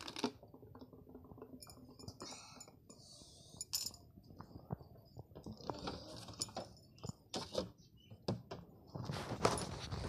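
Scattered light clinks and knocks of dishes and utensils, with a few brief soft rustles in between.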